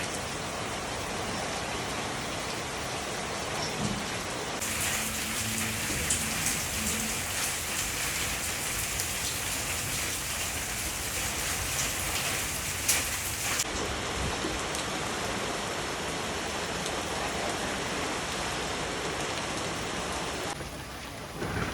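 Steady rain falling, an even hiss with a few louder drops spattering. The sound changes abruptly about 5 and 14 seconds in, hissing brighter in between, as if one rain recording were cut to another.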